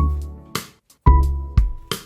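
Background music: held chords that change about a second in, with drum hits between them.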